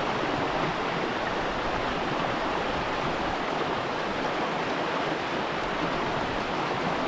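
Fast river current rushing steadily over rocks, an even, unbroken wash of water.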